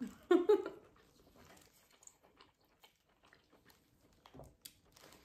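A short vocal sound just after the start, then close-up eating: soft chewing with small clicks and ticks of king crab shell handled by plastic-gloved hands, and a low thump about four seconds in.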